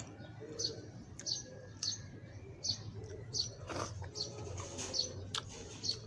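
A small bird chirping over and over, short high chirps about two a second. A few soft clicks and rustles come from eating with bare hands.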